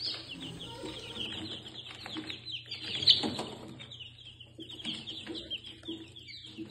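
A crowd of newly hatched chicken chicks peeping without pause, many short, high, falling cheeps overlapping, with one louder peep about three seconds in.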